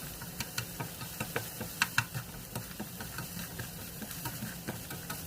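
A spatula stirring onion in a frying pan: irregular light clicks and taps of the spatula against the pan over a faint sizzle.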